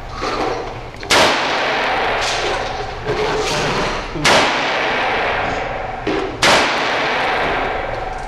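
Gunshots at a shooting range: three loud shots about one, four and six and a half seconds in, each followed by a long echoing tail, with two fainter shots in between.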